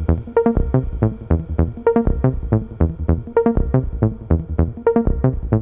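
Electronic background music with a steady beat: short, pitched synthesizer notes over a bass line.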